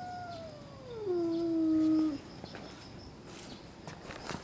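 Red tabby cat giving one long yowl that slides down in pitch, then holds low and gets louder before stopping about two seconds in: a cat's threat yowl in a face-off with another cat.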